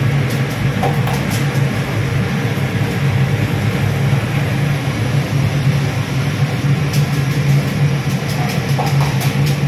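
Steady low mechanical drone of galley ventilation and machinery, with a few light clinks of utensils on metal pots about a second in and again near the end.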